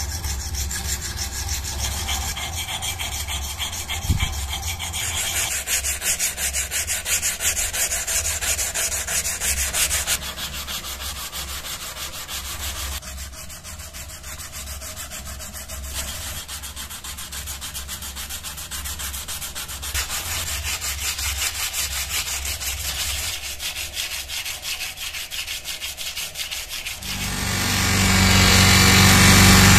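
Knife blade stroked back and forth over a wet sharpening stone, a steady rhythmic scraping, then drawn more quietly along a strop. Near the end an electric buffing wheel starts up and runs with a loud steady hum.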